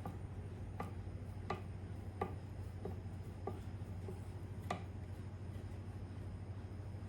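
Small sharp clicks and ticks of a screwdriver working a screw out of the receiver of a Daisy No. 104 double-barrel BB gun, about seven irregular clicks over the first five seconds, over a steady low hum.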